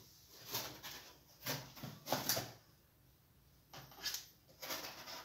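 Craft supplies and a cardboard shoebox being moved about and set down on a tabletop: a string of short knocks, clatters and rustles, loudest about two seconds in.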